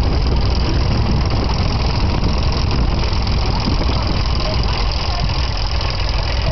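Vintage tractor engine running steadily at low revs, a deep, even engine sound with no sudden changes.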